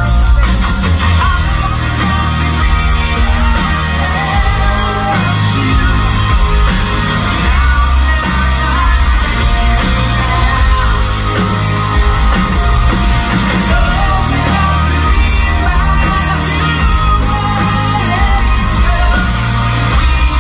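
Live rock band performing through a concert PA, with a male lead singer singing loudly over electric guitar and a heavy bass end.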